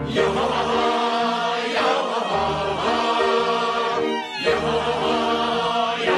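Choir singing a slow song over orchestral strings, with a brief break in the music about four seconds in.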